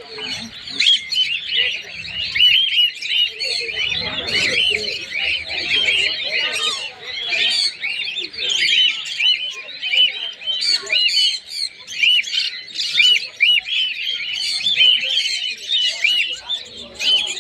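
Many small birds chirping at once, a dense, unbroken chatter of short overlapping high chirps, typical of a flock of cage birds.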